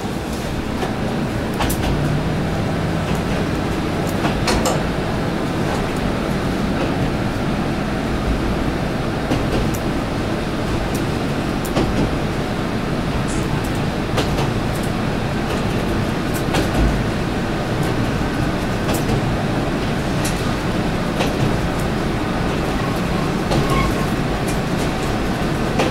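Kominato Railway KiHa 200 diesel railcar heard from inside the cab while running: a steady engine and wheel-on-rail rumble, with irregular sharp clicks and knocks scattered through it.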